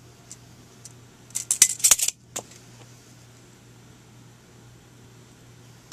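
Metal tools and wire coat hangers clinking and rattling as they are handled, with a cluster of sharp clinks about a second and a half in. Near the end comes a single sharp snap as side-cutting pliers cut through the steel wire of a coat hanger.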